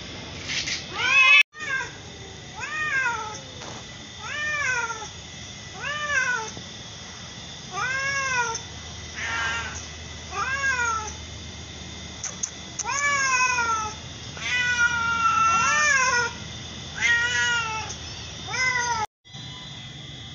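Domestic cat meowing over and over, about a dozen separate meows that each rise then fall in pitch, one every second or two, with one longer drawn-out meow past the middle.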